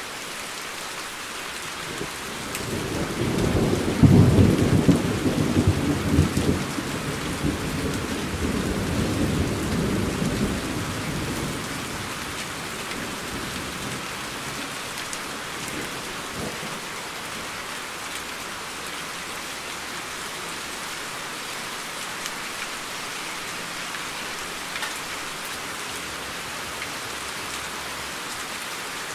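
Steady rain falling, with a long roll of thunder that builds a few seconds in, is loudest briefly, and rumbles away over the next several seconds, leaving the rain alone.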